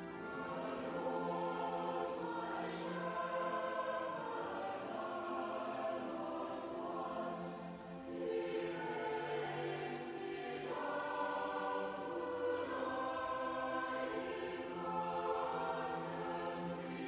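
A choir singing a slow sacred piece in long, held chords, with a short break between phrases about eight seconds in.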